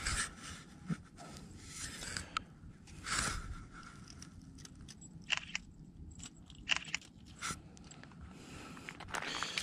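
Scattered handling noise: clothing rustling, scraping and a few sharp clicks while an angler handles a freshly caught rainbow trout and his gear on the ice.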